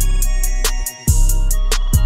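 Hip hop outro beat: deep kick drums over a steady bass with quick hi-hats, dropping out for a moment about a second in.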